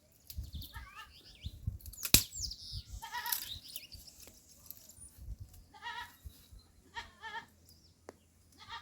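Goat bleating several times in short, quavering calls. A sharp knock sounds about two seconds in, over low rumbling handling noise in the first few seconds.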